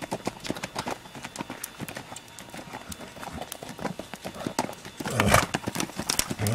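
Hoofbeats of a Missouri Fox Trotter stallion moving quickly on arena dirt: a run of quick, uneven thuds, with a louder rush of noise about five seconds in.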